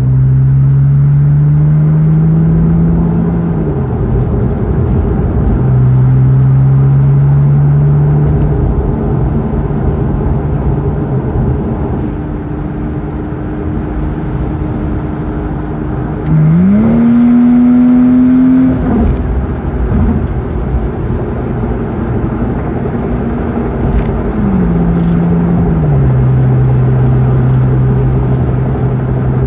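Car engine and road noise heard from inside the moving car: a low engine note climbs and drops in steps as the car accelerates and changes gear, then holds steady at cruising speed over a constant rumble of tyres and wind. About sixteen seconds in the engine note climbs sharply and grows louder for a couple of seconds before settling again.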